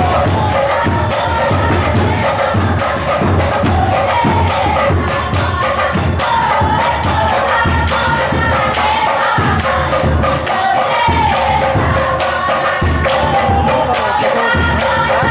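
Nagara naam performance: a group singing a devotional chant together over large bhortal cymbals clashing in a steady rhythm and beating drums.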